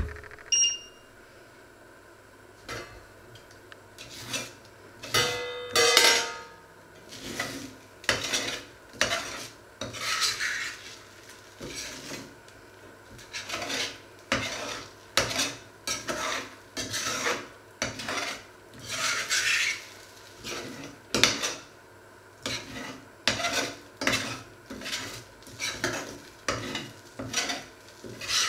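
A metal fork scraping and stirring eggs in a stainless steel saucepan, in repeated strokes about one or two a second. Near the start the pan's steel lid clanks and rings briefly.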